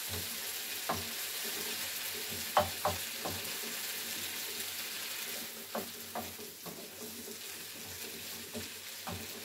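Diced tomatoes and green peppers sizzling in a frying pan, stirred with a wooden spoon that knocks and scrapes against the pan several times, the loudest knock about two and a half seconds in.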